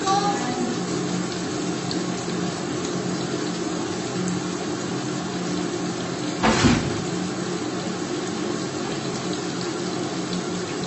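Onion-tomato masala sizzling steadily in an iron kadhai over a gas flame, over a low steady hum. A brief louder rush of noise comes about six and a half seconds in.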